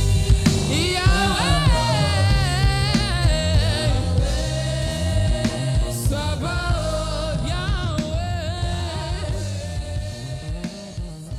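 Gospel song with voices singing over a band, gradually fading out toward the end.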